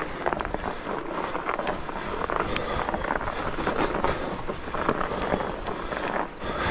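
A fat bike ridden along a snow-covered trail: wide tyres crunching through the snow, with irregular clicks and rattles from the bike.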